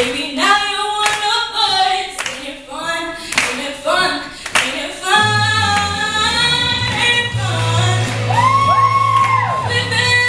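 A woman singing a pop song live into a handheld microphone over a musical backing. For the first five seconds the beat has sharp percussive hits; after that a steady bass line carries held notes, and near the end the voice sweeps up and down in runs.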